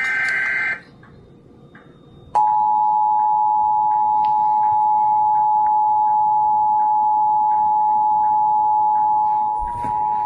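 Emergency Alert System test from a broadcast receiver: the tail of a screechy EAS data-tone burst, a short pause, then the EAS two-tone attention signal, two steady tones just under 1 kHz held for about eight seconds before it cuts off.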